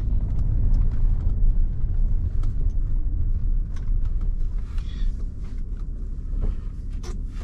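Chevrolet Corvette C5's V8 engine with the car under way: a steady low rumble that eases off slightly in the last couple of seconds, with a few small clicks and knocks.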